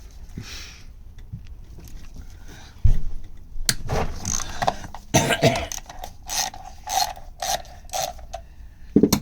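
Hand socket ratchet being worked on an engine bolt: a single knock, then a run of ratcheting strokes, about two a second near the end.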